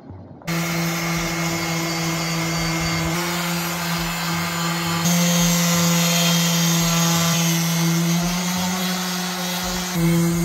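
Random orbital sander running on the fiberglass surface of a boat hatch cover: a steady motor hum over a sanding hiss. It starts abruptly about half a second in and gets louder about halfway through.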